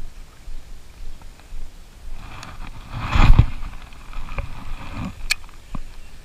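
A cast with a baitcasting rod and reel: a swell of whooshing and handling noise about two and a half seconds in, loudest near the middle, as the rod is swung. A little after five seconds comes one sharp click, the Shimano Curado DC reel being engaged as the handle is turned.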